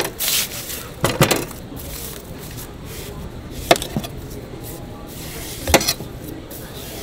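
A kitchen knife cutting the rind off a netted melon, with four sharp knocks spread a second or more apart as the blade or fruit meets the plastic tray.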